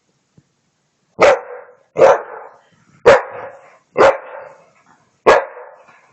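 Pit bull barking at a vacuum cleaner: five short, sharp barks roughly a second apart, starting about a second in.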